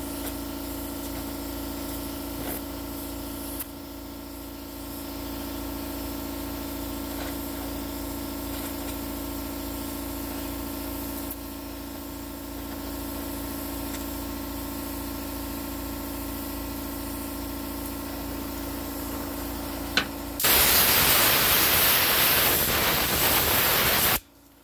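Gas welding torch flame hissing steadily with a low hum while filler rod is melted into sheet metal. About twenty seconds in the hiss becomes much louder for about four seconds, then cuts off abruptly near the end.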